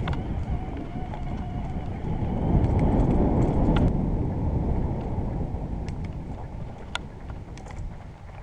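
An e-bike rolling over a grassy dirt track with wind buffeting the microphone, a dense rumble with scattered clicks and rattles from the bike. The noise swells about two and a half seconds in and then dies away as the bike slows to a stop.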